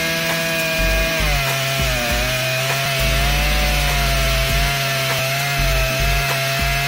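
Makita EA7900P gasoline chainsaw at full throttle, cutting through wood. Its high engine pitch sags and recovers under load. Background music with a pulsing bass line runs underneath.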